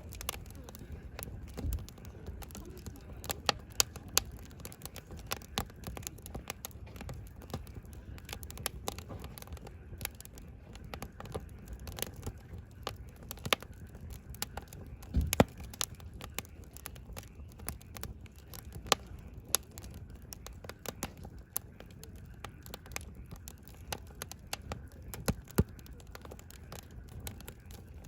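Wood fire burning, the firewood crackling and popping irregularly over a low steady rush of flame, with a few louder pops.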